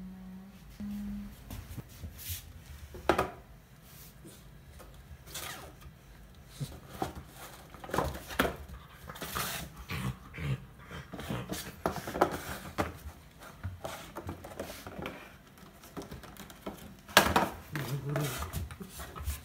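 Miniature schnauzer in socks tussling with an empty cardboard ice-cream bar box on a wooden floor: scattered knocks, scrapes and rustles of the cardboard being pawed, bitten and pushed about, the sharpest knock near the end.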